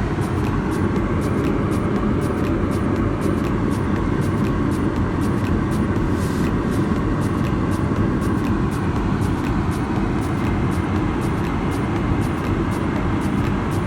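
Steady engine and airflow noise of a Boeing 777-300ER heard inside the cabin, a dense low rumble with faint, evenly spaced ticks, about two or three a second, on top.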